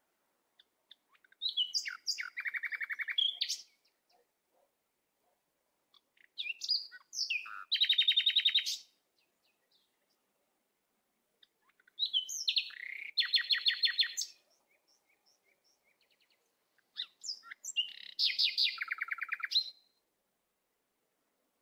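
A songbird singing: four short phrases of rapid trills and chirps, each a couple of seconds long, coming about every five seconds.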